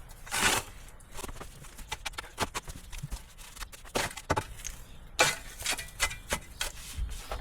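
Digging by hand in soil: irregular thuds and scrapes of a digging tool striking and scooping dirt, with longer scrapes about half a second in and again around five seconds.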